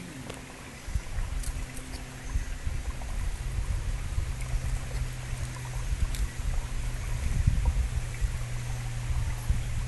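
Low, gusty rumble of wind buffeting the microphone, growing louder about a second in, over a faint steady hum.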